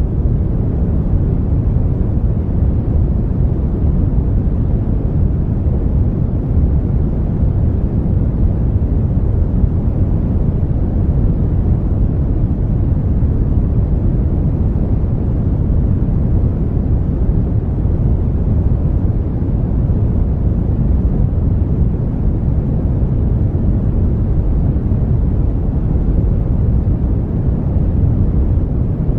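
Brown noise: a deep, steady, even rush of noise, heaviest in the bass and with little treble, unchanging throughout.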